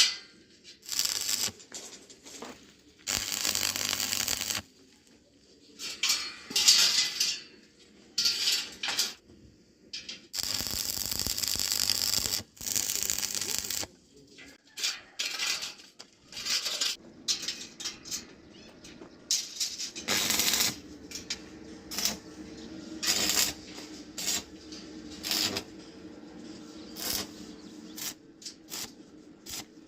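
Welding and metalwork on iron: several bursts of welding noise, each one to three seconds long, then many short clicks and taps of metal. A steady hum joins about twenty seconds in.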